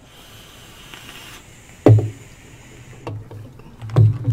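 Hard objects knocked down on a wooden tabletop: a sharp knock about two seconds in, a lighter one a second later and another sharp one near the end, after a soft hiss in the first second and a half.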